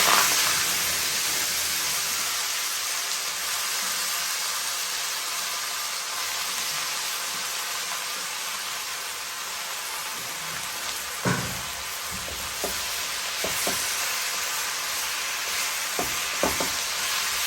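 Cabbage stir-frying in hot oil in a pan, sizzling loudest at the start and then settling to a steady sizzle. In the last several seconds a spatula knocks against the pan a few times.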